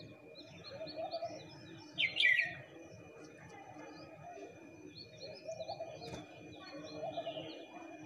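Several small birds chirping, with many short high chirps throughout and one louder harsh call about two seconds in.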